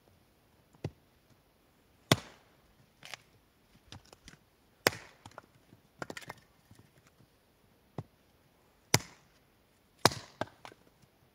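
Axe chopping firewood on a chopping block: several sharp, hard strikes at uneven intervals a few seconds apart, four of them loudest, with lighter knocks of wood between.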